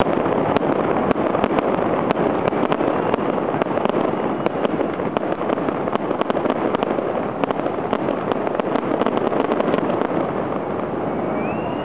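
Fireworks display: a dense, continuous crackle of many small sharp pops and bangs over a steady rushing noise, thinning out near the end.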